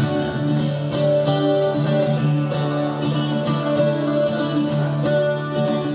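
Acoustic guitar strummed in a steady rhythm, playing the instrumental introduction before the vocals come in.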